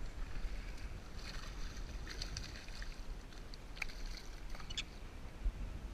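Scattered splashing of creek water over a steady low rumble of wind on the microphone, with a few faint clicks.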